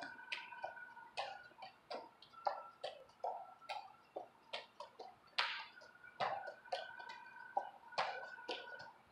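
Juggling clubs smacking into hands as they are caught and passed between two jugglers: a steady run of sharp clacks, about three a second.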